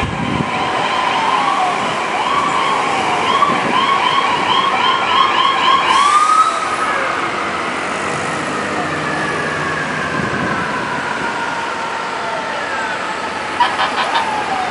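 Several emergency-vehicle electronic sirens sounding at once over city traffic. A yelp speeds up into a fast warble and cuts off with a rising glide about six seconds in, while slower wails carry on falling away. A quick run of short horn blasts comes near the end.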